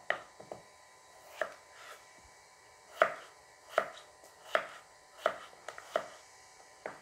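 Kitchen knife cutting chayote into chunks on a wooden cutting board: sharp, irregular knocks of the blade on the board about once a second, with a short pause after the first couple of seconds.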